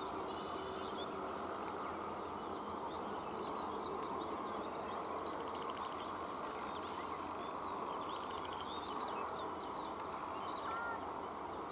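Steady ambience of insects buzzing, a high, pulsing whine, with scattered bird chirps over an even background hum.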